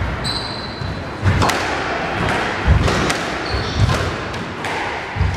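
A squash rally: the ball thuds off racket and walls about five times, roughly every second and a half, with short squeaks of court shoes on the wooden floor in between.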